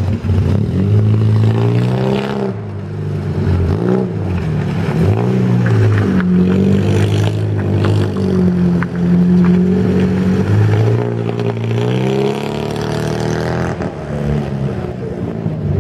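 A vintage car's engine revving hard as the car pulls away and manoeuvres. The revs rise and fall repeatedly, with the engine note dropping sharply several times.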